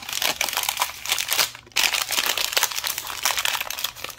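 The crinkly plastic wrapper of an LOL Surprise doll crackles and crumples steadily as hands work it open, with a brief pause a little under two seconds in.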